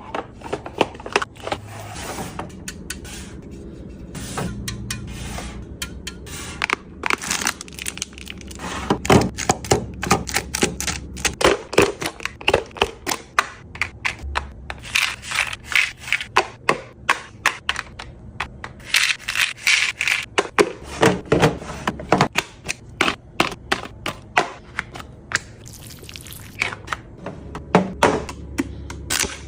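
Snacks and packaged items being set into a plastic fridge drawer: a quick, uneven run of clacks, taps and scrapes, with rustling packaging in between.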